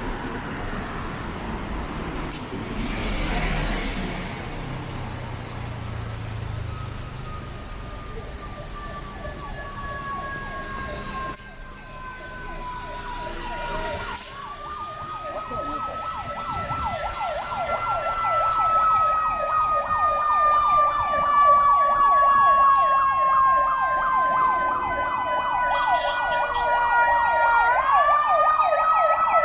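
An emergency vehicle siren wails, faint at first and getting louder as it approaches, over street traffic. Each long, slow falling sweep ends in a quick rise.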